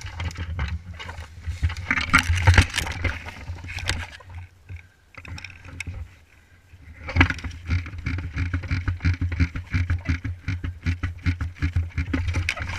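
Rustling, scuffing and knocking from a person moving with a head-mounted camera, over a low rumble. It drops away for about two seconds midway, then returns as a fast run of irregular clicks.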